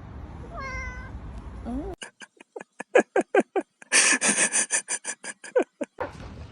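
A domestic cat gives a short call, then a quick run of short repeated meows, roughly four a second, for about four seconds.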